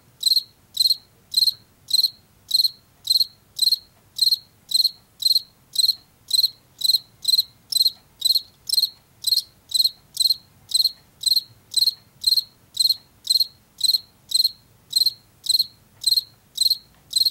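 Male field cricket chirping, its calling song made by rubbing its front wings together: short, high-pitched chirps repeated evenly at about two a second.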